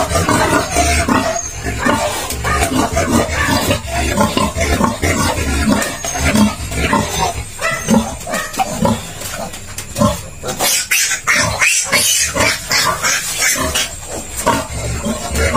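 Newborn piglets squealing and grunting as they are caught and handled, with deep grunts from the sow in the crate. The squealing is most shrill and dense about two-thirds of the way through.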